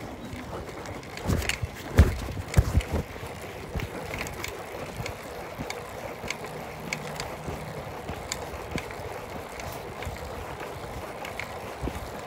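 Handling noise from a phone carried in a pocket: fabric rubbing against the microphone, with a cluster of knocks and bumps about one to three seconds in, the loudest about two seconds in.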